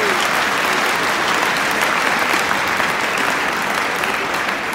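Large arena crowd applauding steadily, a dense mass of clapping hands.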